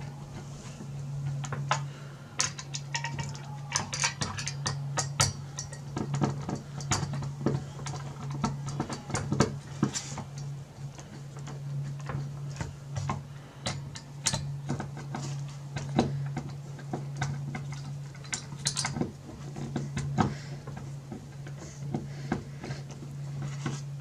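Hand screwdriver turning the heatsink's mounting screws into the CPU cooler bracket: irregular small metallic clicks and scrapes as the screws are run in toward hand tight, one after another for even pressure. A steady low hum runs underneath.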